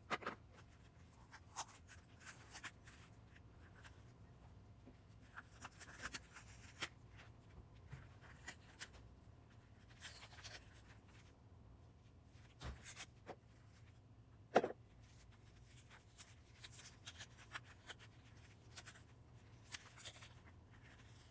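Faint, scattered rustling and scratching as gloved hands handle and pull apart the oil-soaked pleated paper element of a cut-open oil filter, with one sharper tap about two-thirds of the way through.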